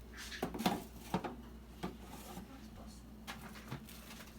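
A few light clinks and knocks of kitchen utensils and dishes being handled, spaced irregularly, with the clearest in the first second or so. A faint steady hum lies underneath.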